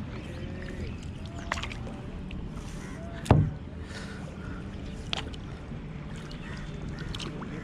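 Kayak paddling on a river: paddle strokes in the water with a steady wash of water sound and a few light clicks, and one loud sharp knock a little under halfway through.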